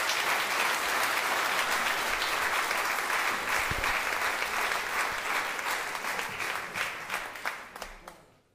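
Audience applauding at the close of a live swing band number, the clapping fading out near the end.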